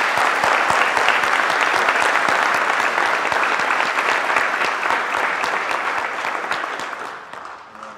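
Audience applauding, dense clapping from many hands that dies away near the end.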